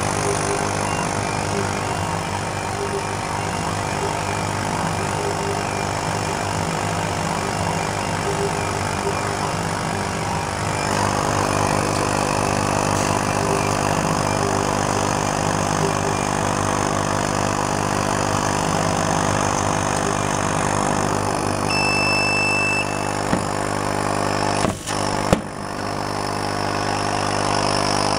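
Laser cutting machine running while it cuts acrylic: a steady machine hum from its fans and pumps, with the cutting head's motors moving, getting a little noisier about a third of the way through. Late on there is a short beep, then a couple of sharp knocks.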